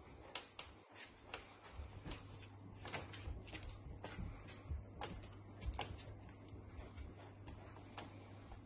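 Irregular clicks and light knocks of a golden retriever puppy's claws and paws on a hardwood floor as she scrambles about with a plush toy, over a steady low hum.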